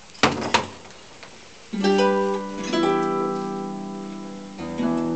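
Two sharp knocks close together near the start, then a harp being plucked: a few notes struck together about two seconds in and left ringing and slowly fading, then a fresh set of notes near the end, the opening of an unaccompanied harp introduction.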